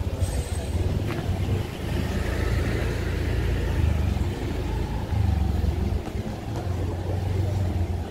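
Steady low rumble of motor traffic in a city street, with scooter engines running.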